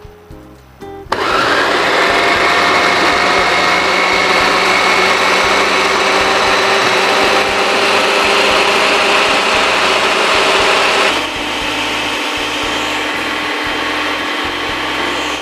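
MECOO Ice Crusher Blender motor running, chopping chilies, shallots, garlic and candlenuts with a little water into a wet spice paste. It starts suddenly about a second in and runs steadily, then its note and loudness drop slightly about eleven seconds in.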